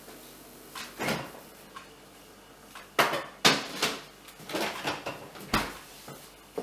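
Clunks and knocks of a kitchen refrigerator being opened, a cheesecake tin set inside and the door shut, ending with a dull thump about five and a half seconds in.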